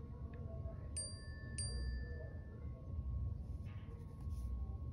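Smartphone message-notification chime: two short ringing electronic notes about 0.6 s apart, about a second in, over a low steady rumble.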